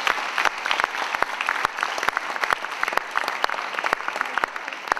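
Audience applauding, with many separate hand claps.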